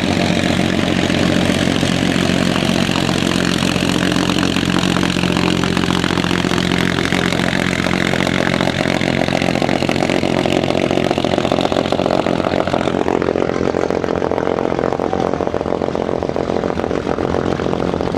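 Piston engines of vintage propeller fighters running at taxi power: a steady, loud engine drone with spinning propellers. The sound changes about thirteen seconds in as a different aircraft comes past.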